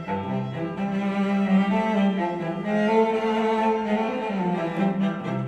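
Classical string music led by cello, with sustained bowed notes over a low bass line, played through a pair of Yamaha HS8 studio monitors and recorded by microphone in the room.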